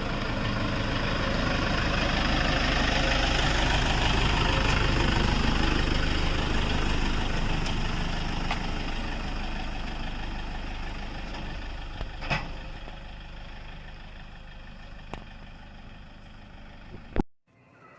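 A vehicle engine running steadily. It grows a little louder over the first few seconds, then fades slowly, and cuts off abruptly with a click near the end.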